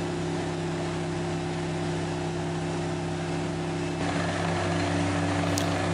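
Engine of a truck-mounted water well drilling rig running steadily, a constant low drone. About four seconds in, a rougher rushing noise joins it.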